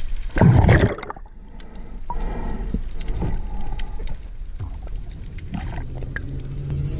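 Underwater sound as picked up by a diving camera: a loud, muffled rush about half a second in, then quieter watery crackles and clicks. Electronic outro music starts near the end.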